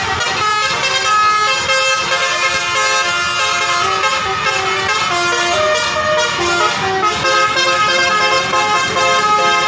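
Bus telolet horn playing a tune: several horn tones together, stepping quickly from note to note without a break, over the rumble of the bus.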